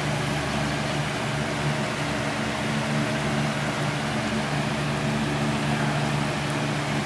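Window fan running steadily: a low motor hum with the rush of moving air, over the even hiss of steady rain.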